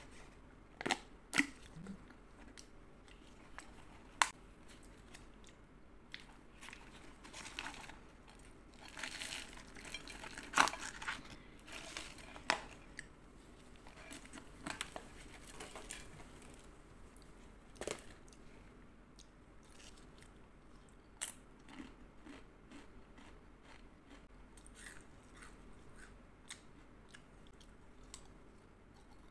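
Close-miked crunching and chewing of Lay's Stax potato chips: sharp crisp snaps scattered throughout, with the densest run of crunching about ten seconds in.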